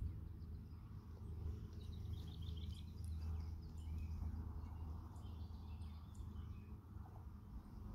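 Faint outdoor ambience: a steady low rumble with small birds chirping over it, a quick run of chirps about two seconds in and a few more later.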